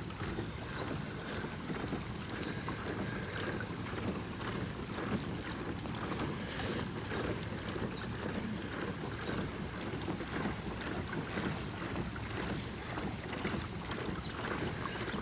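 Boat motor running steadily while under way, with wind on the microphone and water washing along the hull.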